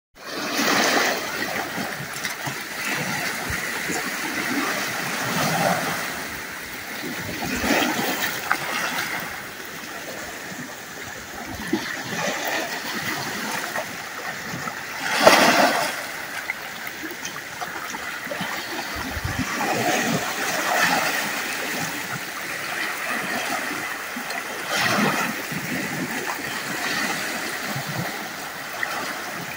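Small waves splashing and lapping in irregular surges, with one louder splash about halfway through.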